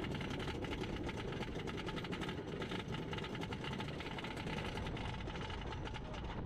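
Machinery running with a fast, even clatter over a steady low rumble.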